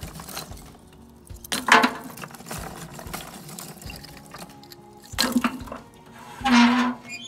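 Dry wood sticks dropped and piled onto charcoal briquettes in a smoker's firebox, in three bursts of clattering: about a second and a half in, around five seconds, and near the end.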